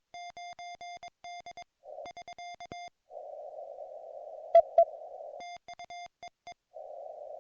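Morse code from a YouKits HB-1B QRP transceiver: a single mid-pitched tone keyed on and off in dots and dashes, broken by stretches of band hiss heard through the narrow CW receive filter. Two sharp loud clicks come about halfway through.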